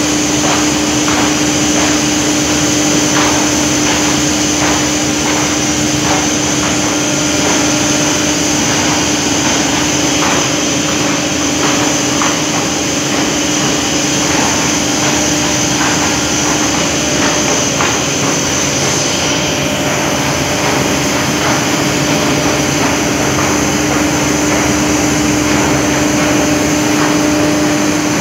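Large axial fans of an air-cooled steam condensing unit running: a loud, steady drone with a constant hum and a high whine, with faint irregular ticks or knocks through much of it.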